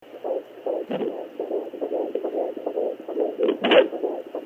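Fetal heartbeat at 13 weeks picked up by a Sonoline B pocket fetal Doppler and played through its small speaker: a fast, even whooshing pulse. Two sharp thumps break in, about a second in and louder near the end, the kind of booms the mother identifies as the baby kicking at the Doppler probe.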